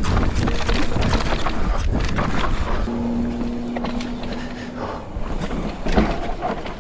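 Scott Ransom full-suspension mountain bike descending a rocky dirt trail at speed: tyres rumbling over rock and loose dirt, the bike rattling and knocking over the bumps. About three seconds in, a steady hum comes in and runs for about two seconds.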